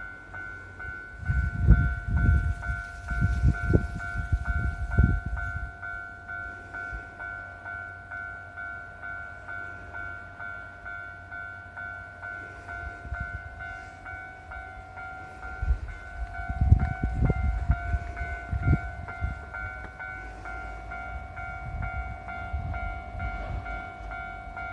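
Japanese level-crossing warning bell ringing steadily, about two dings a second. A passing train adds heavy low rumbles with clunks of wheels over the rail joints about two to five seconds in and again around sixteen to nineteen seconds.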